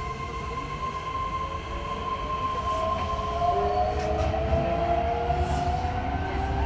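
Keihan 3000-series electric train running, heard from inside the car: a low rumble of wheels on rail under a motor whine of several tones that climbs in pitch as the train picks up speed. A steady higher tone fades out about halfway through, and a few light clicks come from the track.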